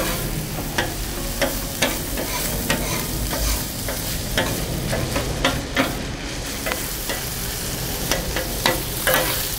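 Ground beef and onions sizzling on a Blackstone steel flat-top griddle while two metal spatulas chop and scrape through them, with frequent, irregular sharp clacks of metal on the steel cooktop.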